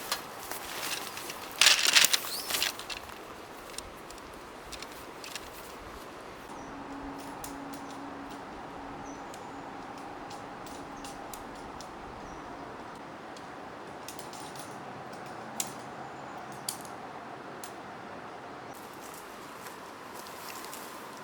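Small objects being handled: a brief clatter about two seconds in, then scattered light clicks and taps over a steady background hiss.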